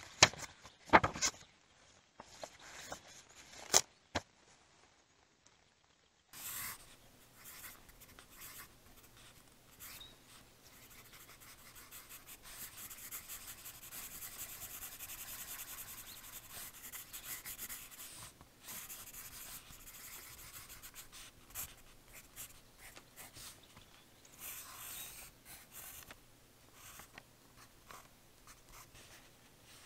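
A few sharp taps in the first seconds, then a pencil scratching steadily across lined notebook paper while drawing.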